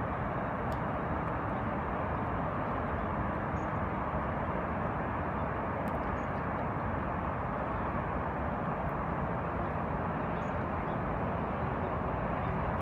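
Steady distant traffic hum from a highway bridge across the water, with a couple of faint high chirps.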